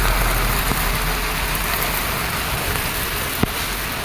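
Heavy rain in a windstorm: a steady, even hiss, with a single sharp click about three and a half seconds in.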